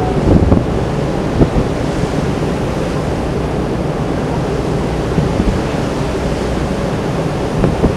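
Wind buffeting the microphone over the steady rush of the open sea, heard from the deck of a ferry under way. There are a few louder gusts in the first second and a half.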